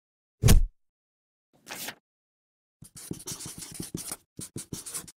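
A single heavy thud about half a second in and a short swish, then a felt-tip marker writing on paper in quick scratchy strokes from about three seconds in.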